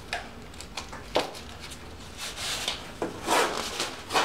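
Plastic drop cloth and blue painter's tape being handled while the sheeting is taped to the wall: rustling and rubbing of the plastic, with a few sharp clicks.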